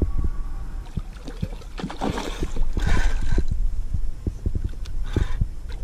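Water lapping and splashing around a kayak while a hooked fish is fought on rod and reel, with many low knocks and thumps from the hull and handling, and two short splashes about two and three seconds in.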